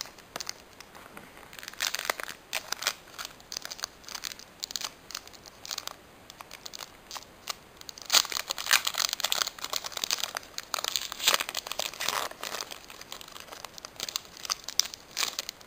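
Foil trading-card booster pack wrapper crinkling and crackling as it is handled and torn open, with a denser spell of crinkling from about eight seconds in.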